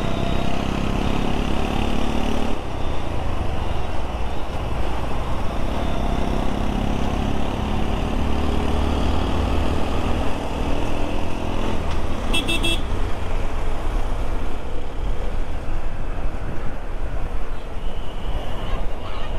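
Motorcycle engine running at road speed, with wind rushing over the microphone and traffic around. About twelve seconds in, a short rapid burst of horn beeps.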